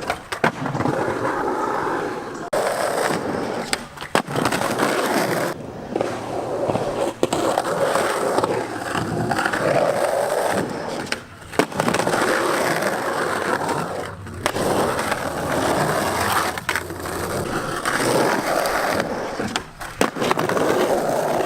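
Skateboard wheels rolling over pavement with a continuous rough grind, broken by several sharp clacks and knocks of the board.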